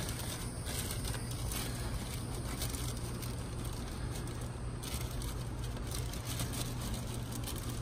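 Plastic zip-top bag crinkling as it is worked into place under a leaking radiator hose, over a steady low hum.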